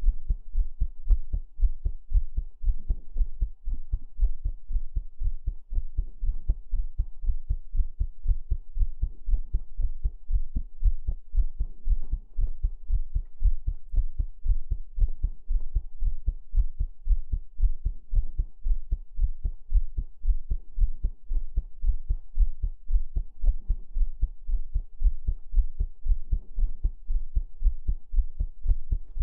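Heartbeat sounds: deep, muffled thumps repeating in a steady, even rhythm.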